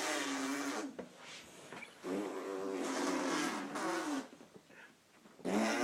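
Blowing raspberries: buzzing, voiced lip trills in three bouts, the first ending about a second in, the second lasting about two seconds, and a third starting near the end.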